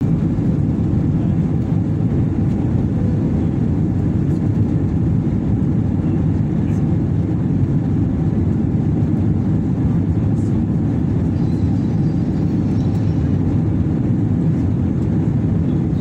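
Jet airliner cabin noise heard from a window seat over the wing: a steady, loud low rumble of engines and rushing air that does not change.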